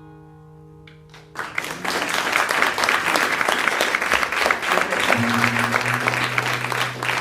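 Last acoustic guitar chord of a song ringing and fading away, then audience applause breaking out about a second and a half in and carrying on loudly.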